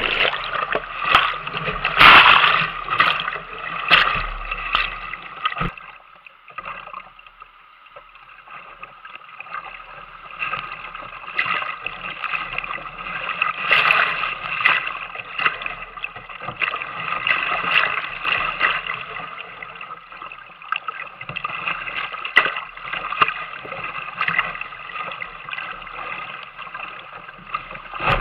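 Whitewater rushing and splashing over a kayak-mounted camera as the kayak runs a river rapid, with frequent sharp splashes from waves and paddle strokes. The rush drops lower for a few seconds about six seconds in, then builds again.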